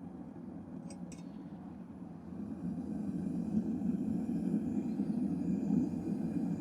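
Propane burner of a small smelting furnace running with a steady low rushing noise that grows louder from about two and a half seconds in; two light clicks about a second in.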